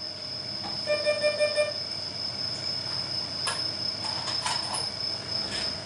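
A steady high-pitched whine, a short electronic beep lasting under a second about a second in, and a few light clicks later on.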